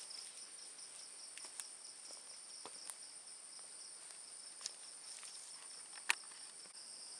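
Night insects such as crickets chirring steadily in two high-pitched layers, one of them pulsing quickly. A few scattered sharp clicks and knocks sound over them, the loudest about six seconds in.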